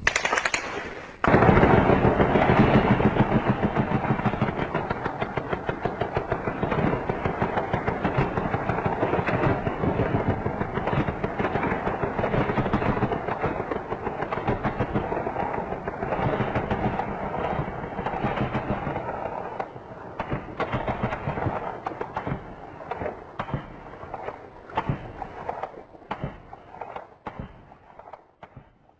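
Heavy gunfire from many weapons, rapid automatic bursts overlapping without a break, thinning to scattered single shots and short bursts over the last several seconds.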